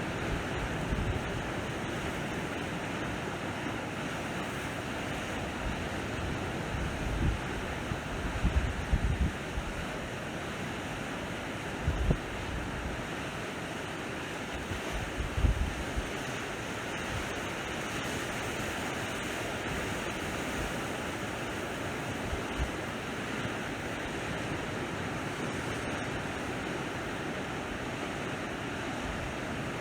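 Sea waves washing onto the shore, a steady surf hiss. Wind buffets the microphone in several short low gusts in the first half.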